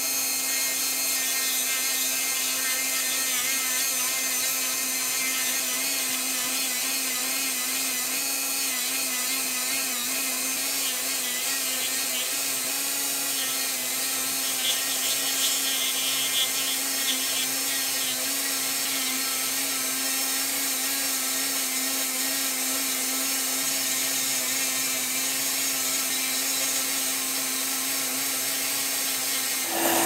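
Handheld rotary tool with a small sanding drum running steadily at a high-pitched whine as it sands a curved groove into maple wood. The pitch wavers slightly when the drum is pressed into the wood, with a scratchier stretch of sanding about halfway.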